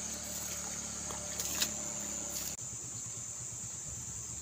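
Rice-field ambience with a steady high-pitched insect drone, a couple of brief knocks about a second and a half in, and an abrupt change in the background noise a little past halfway.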